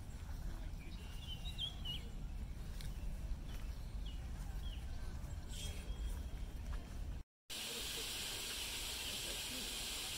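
Outdoor garden ambience: a low rumble with a few short, high bird chirps. About seven seconds in, the sound cuts out briefly and gives way to a steady, even hiss.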